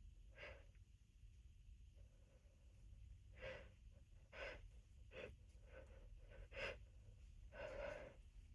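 A person's faint, short sniffs and breaths, about six of them spread over several seconds, the last one a little longer.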